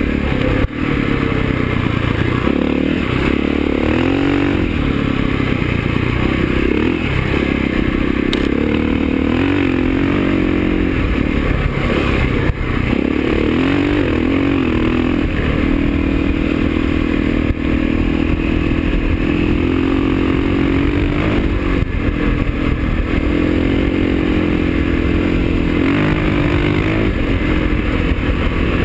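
KTM 625 SXC enduro motorcycle's single-cylinder four-stroke engine pulling along a dirt track, heard from a handlebar-mounted camera. Its pitch rises and falls with the throttle several times in the first half, then holds steadier, with a few knocks and rattles over bumps.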